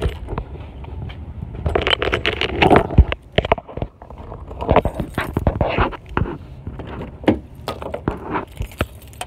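Handling noise from a phone carried against a zip-up hoodie: a busy run of clicks, knocks and scraping rustles over a low wind rumble.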